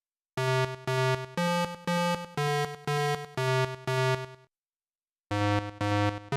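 Background music: a simple tune of evenly spaced notes, about two a second, with a short dead-silent break of under a second past the middle before the notes start again.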